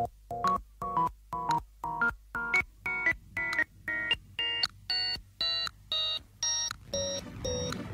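Synthesizer music: a staccato sequence of short electronic notes, about two a second, climbing step by step in pitch, then falling back low near the end as a fuller backing comes in.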